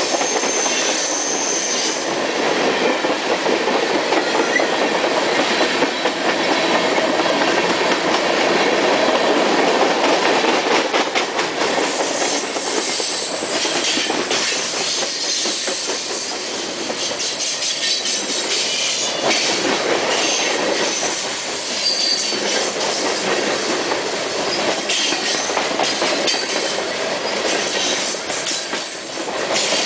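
Freight train's tank cars and boxcars rolling past at trackside: a steady rumble and rattle of steel wheels on rail, with scattered clicks over the rail joints and brief high-pitched wheel squeals now and then.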